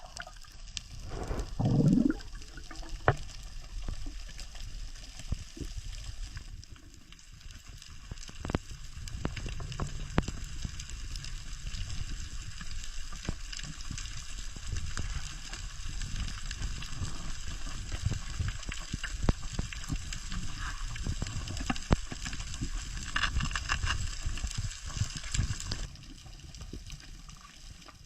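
Water gurgling and bubbling with a steady hiss and many scattered clicks and knocks, typical of spearfishing footage with its own water sound. A loud short rush of water comes about two seconds in, and the sound falls away shortly before the end.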